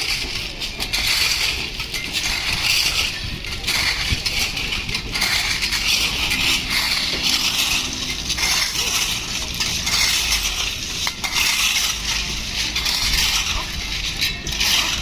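Railway track construction work: ballast gravel crunching and scraping with metallic clinks, swelling and fading over and over in a steady working rhythm.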